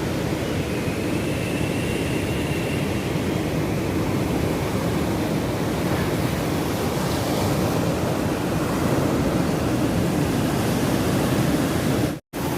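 Steady rushing noise of ocean surf. It drops out abruptly for a moment near the end.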